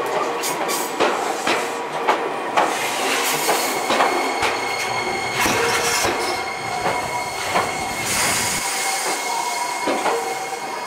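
Iyotetsu suburban-line electric train rolling slowly on curved track, its wheels squealing in several high steady tones. A run of sharp clicks from the wheels over rail joints comes about every half second, thinning out after the first few seconds.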